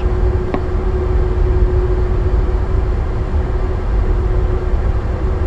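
Airbus A330 on its landing roll down the runway, heard from the cockpit: a steady low rumble of the tyres and engines with a constant hum over it, and one sharp click about half a second in.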